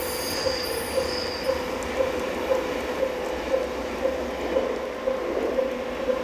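JR 211-series electric train running away along the rails, with a high wheel squeal in the first couple of seconds. Over it, a ringing tone pulses evenly about twice a second.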